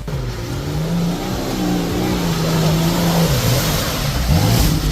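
Off-road 4x4 engine revving under load: its pitch climbs, holds steady, drops briefly, then climbs again near the end.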